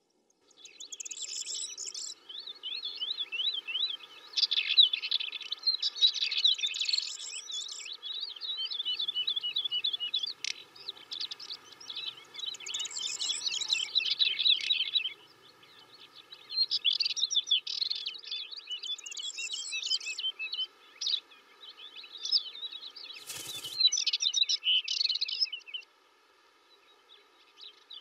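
Several songbirds singing in rapid trills and warbling phrases, overlapping in bouts with short pauses, over faint steady high-pitched tones. One brief sharp noise cuts in about 23 seconds in.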